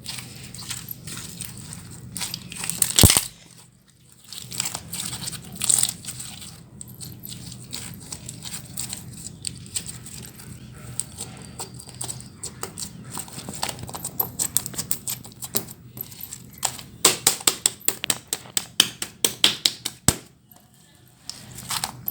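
Slime being squeezed and pressed, crackling and popping in sharp clicks, with a fast run of pops over the last few seconds.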